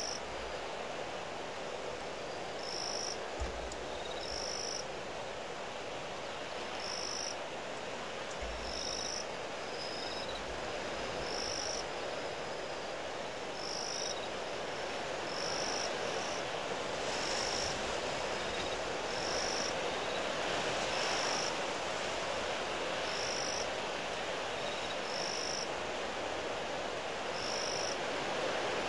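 Strong wind blowing steadily over the microphone, with a few low rumbles from gusts early on and growing a little stronger in the second half. A short, high call repeats about every two seconds over it.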